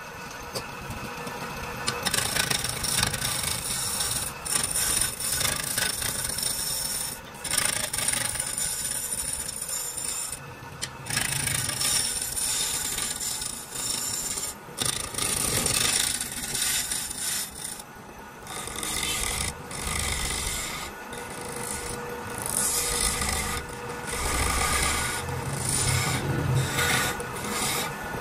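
Wooden baluster blank spinning on a wood lathe while a hand-held turning chisel shaves it: a continuous rasping cut of wood. It starts about two seconds in and breaks off briefly several times as the tool is lifted and set again.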